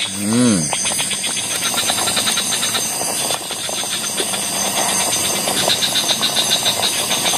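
Pot of stew boiling hard over a campfire: a steady bubbling hiss with fast, dense crackling.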